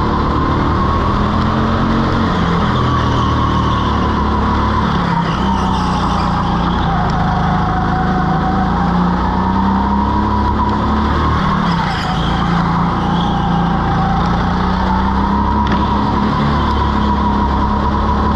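Go-kart motor running hard through a lap, its whine dropping in pitch into the corners and climbing again on the straights.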